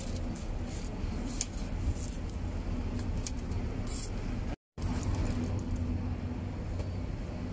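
Steel kitchen scissors snipping through fried pancake a few times in the first half, sharp metal clicks, over a steady low hum of street traffic. A brief gap of total silence falls just past halfway.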